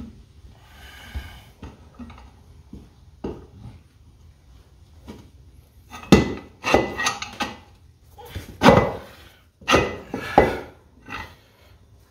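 Heavy cast-iron tractor wheel weight being worked over the carriage bolts and seated against a steel rear rim. Faint scraping and light knocks at first, then from about six seconds in a run of loud metallic clanks with a short ring.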